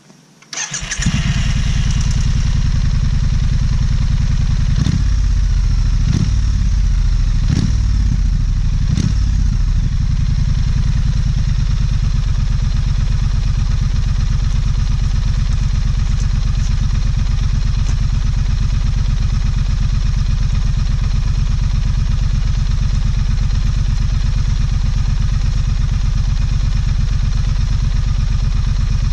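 Triumph Street Scrambler's 900 cc parallel-twin engine on its stock exhaust, starting up about a second in. It is blipped four times in quick succession, then settles into a steady idle.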